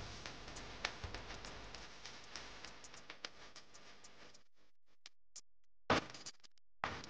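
A kitchen knife chopping garlic on a cutting board: irregular taps of the blade against the board. The taps stop a little past halfway, and one sharp knock comes about six seconds in.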